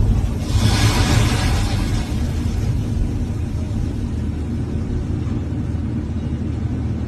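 Heavy machinery demolishing a collapsed bridge: an engine running with a steady low rumble, with a loud rushing crash from about half a second in that lasts a second or so.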